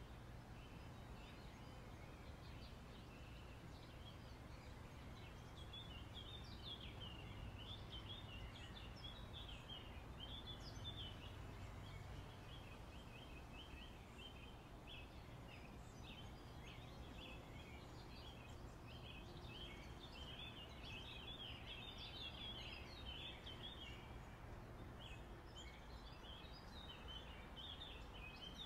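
Faint outdoor ambience: many small birds twittering continuously in quick, overlapping chirps, over a low steady rumble.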